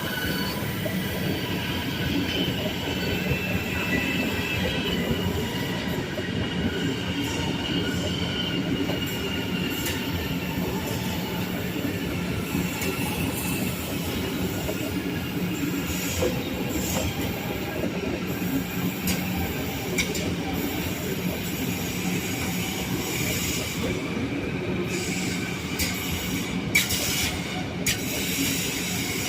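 A train running with a steady rumble and high-pitched wheel squeal, strongest in the first few seconds, and a few sharp clicks near the end.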